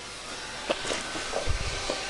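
Camera handling noise as the camera is swung about: a few light clicks, then a short cluster of low thumps about one and a half seconds in.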